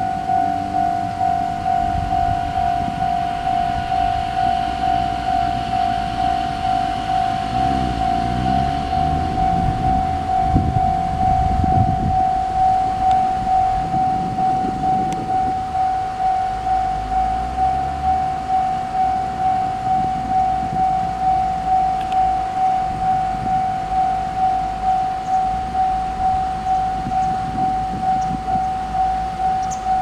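Japanese railway level-crossing alarm ringing its repeated single-pitched 'kan-kan' tone, about two strikes a second, warning that a train is approaching. A low rumble swells and fades in the middle.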